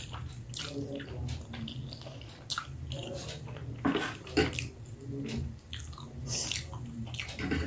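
A person eating spicy instant noodles: slurping, then chewing with wet mouth sounds and irregular smacks, the densest about four seconds in.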